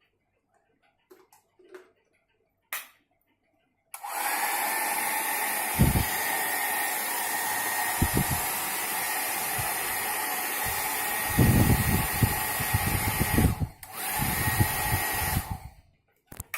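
Nova Silky hair dryer switched on, its motor spinning up to a steady whir with a high whine, running for about ten seconds, cutting out briefly and coming back on, then switching off shortly before the end. Its airflow buffets the microphone with low rumbles at times, and a few light clicks come before it starts.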